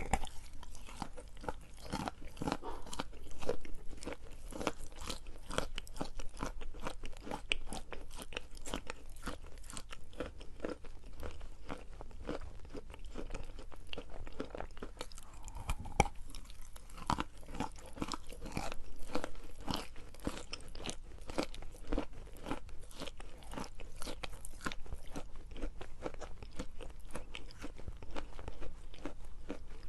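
Edible chalk being bitten and chewed: a continuous run of crisp, crackling crunches.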